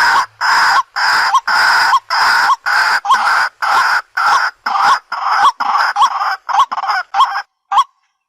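White-breasted waterhen calling: a long run of loud, harsh, repeated calls at about two a second, each call growing shorter and the gaps wider near the end.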